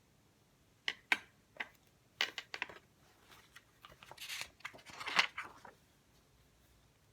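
Desk handling noises while studying. A few sharp clicks and taps come first, then a quick cluster of them about two seconds in, then a longer rustle of paper or other material around four to five and a half seconds in.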